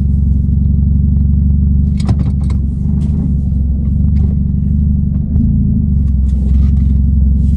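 Straight-piped Dodge Dart's exhaust droning steadily as the car drives along, with a few short clicks about two seconds in.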